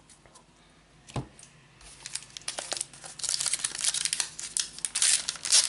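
Foil trading-card booster pack being crinkled and torn open, with a light knock about a second in; the crinkling builds from about two seconds in and grows loud over the second half.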